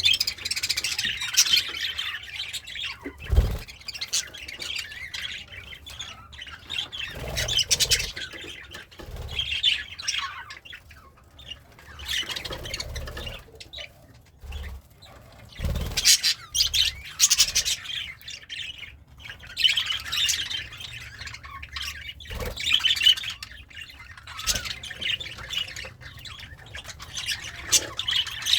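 Budgerigar chattering and warbling in bouts of rapid chirps and squawks, with short pauses between them. A few dull low thumps stand out, the clearest about three seconds in.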